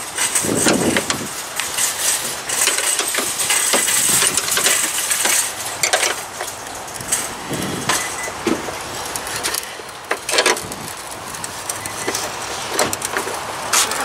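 Steel wrenches clicking and clinking on a car battery's hold-down bolt and strap as the bolt is worked loose, in short irregular metallic knocks.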